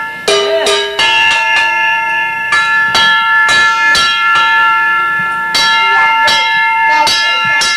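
A toddler beating a stainless steel mixing bowl with a wooden spoon: irregular metallic clangs, each leaving a bell-like ring that hangs on. The ringing dies away near the end as the strikes stop.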